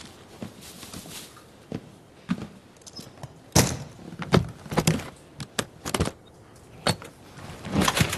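Irregular clicks, knocks and clacks of a metal-cornered case being pulled out and opened, its latches and fittings rattling. The loudest knocks come in a cluster a few seconds in and again near the end.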